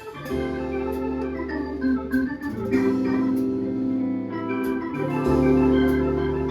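Live band music: sustained organ-like keyboard chords that shift every second or two over a deep bass line, with sharp high ticks from the drums.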